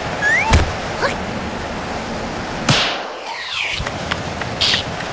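Cartoon windstorm sound effects: a steady rush of wind, broken by a few sharp knocks and a loud whoosh about two and a half seconds in.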